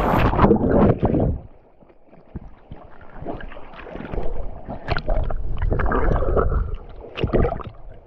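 Water splashing and churning close by as a person moves through it, in irregular surges: heavy for the first second or so, quieter, then again through the middle and latter part.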